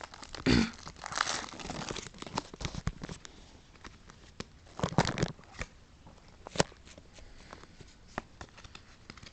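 A Pokémon trading card booster pack's foil wrapper being torn open and crinkled, a dense rustle for the first few seconds. Then scattered short crinkles and taps as the cards are handled.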